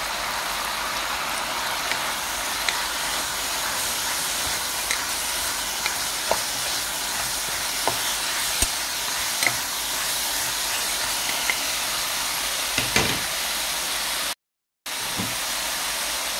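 Frying pan sizzling steadily as Chinese kale, holy basil and spring onions stir-fry, with scattered light clicks and a louder knock about 13 seconds in from a wooden spatula against the pan. The sound cuts out for half a second near the end.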